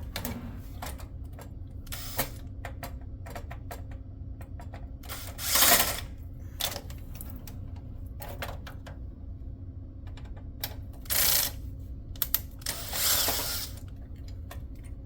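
Small metal clicks and taps of screws and PC parts being handled while a case is taken apart, with a few short scrapes, the loudest about halfway through. A steady low hum runs underneath.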